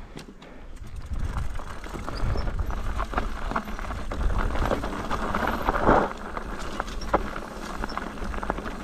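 Mountain bike rolling over a rough, rocky trail: tyres crunching on stones and the bike rattling with many sharp knocks, the loudest about six seconds in.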